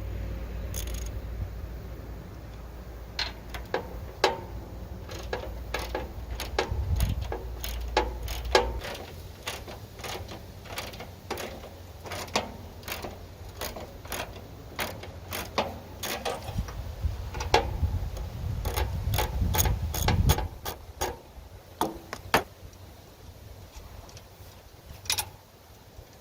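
Ratchet wrench clicking in short, irregular runs, with scattered metal clicks and knocks, as screws are loosened on a stand-on mower's frame. A low rumble runs under it for the first nine seconds and again from about sixteen to twenty seconds in.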